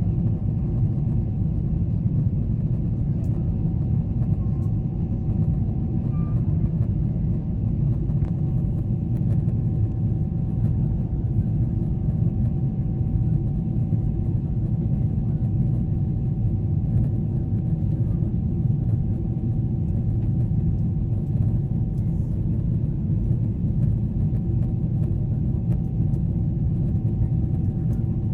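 Steady low cabin rumble of a Boeing 777-300ER in flight, the noise of its GE90 engines and the airflow over the fuselage heard from a window seat, with a faint steady whine riding above it.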